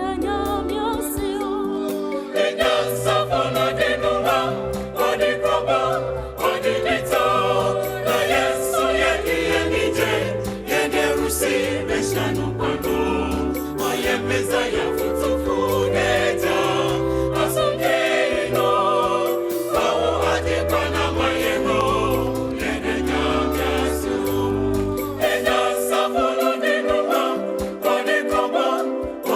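A choir singing a song in harmony with instrumental accompaniment: a low bass line moving under the voices and a steady percussive beat.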